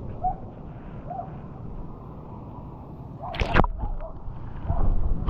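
Water sloshing around a small fishing boat, a steady low wash, with one brief sharp rush of noise about three and a half seconds in and louder clattering handling noise near the end.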